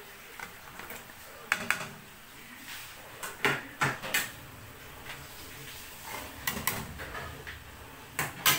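Vegetables tipped off a plate into a large aluminium pot of simmering broth, with sharp clinks and knocks of plate and pot in four short bunches.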